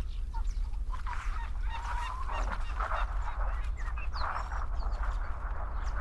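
Birds calling around a harbour: many short chirps and quick rising and falling calls, with rougher, louder calls about two and a half and four seconds in, over a steady low rumble.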